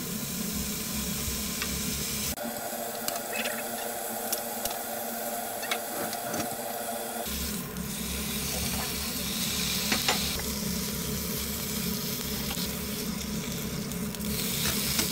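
Thin slices of marbled beef sizzling in a hot nonstick frying pan, a steady hiss, with a few sharp clicks of chopsticks on the pan as the meat is turned and lifted.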